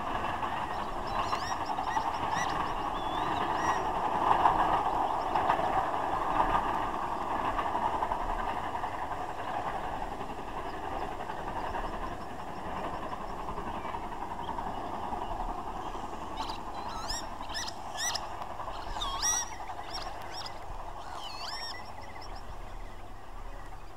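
Princess Coronation class 4-6-2 steam locomotive climbing a gradient with an express, a steady rumble that swells about four seconds in and then slowly fades into the distance. From about sixteen seconds in, birds give a series of short hooked calls.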